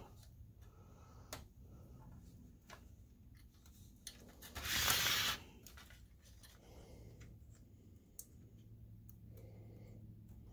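Faint clicks and rubbing of hands handling wires and pushing cable connectors into a projector's main circuit board. A short rushing noise, louder than the rest, comes about five seconds in.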